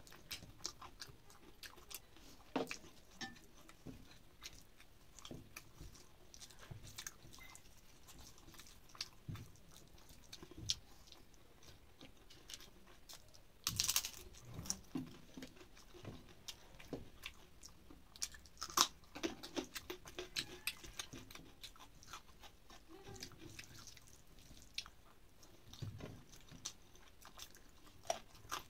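A person eating rice and curry by hand, with soft chewing and wet mouth clicks; about halfway through comes a loud crisp crunch as she bites into a fried papad, followed by more crunching as she chews it.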